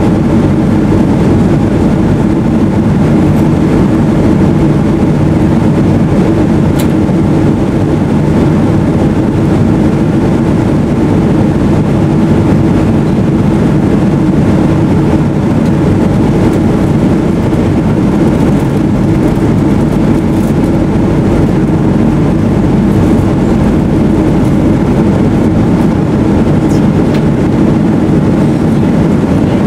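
Steady, loud low drone inside the passenger cabin of a Boeing 777-200ER in flight, from its two Rolls-Royce Trent 895 engines and the air rushing past the fuselage.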